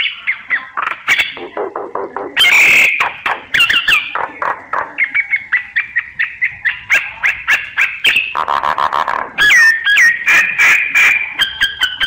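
Myna singing a rapid, varied song of clicking notes and short whistles, broken twice by harsh rasping bursts, one about two and a half seconds in and a longer one near the end.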